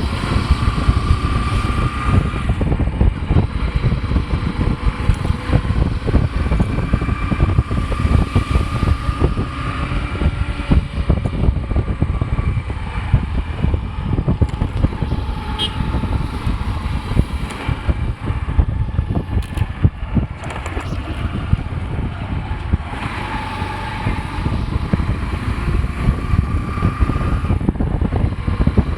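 Riding a motorcycle in traffic: steady wind buffeting on the microphone over road and engine noise, with a few faint drawn-out tones from passing traffic coming and going.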